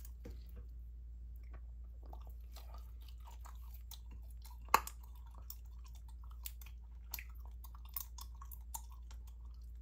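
Gum chewed close to the microphone: irregular wet smacks and clicks, with one sharp, much louder click a little before halfway. A faint steady low hum runs underneath.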